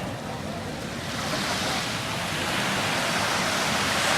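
Ocean surf washing in: a steady rushing noise that swells louder from about a second in.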